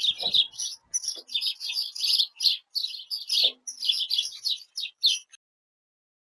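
Small songbirds chirping and twittering in quick, dense runs of high notes, cutting off suddenly about five seconds in.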